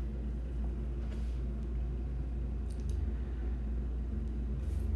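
Steady low electrical hum with a ladder of evenly spaced overtones, and two faint clicks, about a second in and near three seconds.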